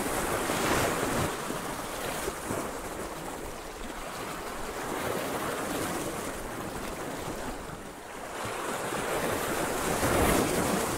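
Small sea waves washing and breaking against shoreline rocks, the wash swelling about a second in and again near the end.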